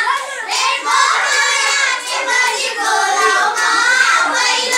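A group of children singing a Nepali lok dohori folk song, with scattered hand claps and laughter.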